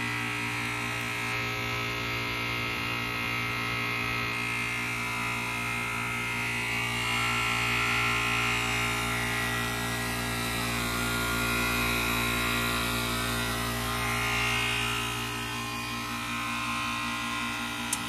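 Heat pump outdoor unit running through a defrost cycle: the compressor hums steadily under a steady hiss of refrigerant.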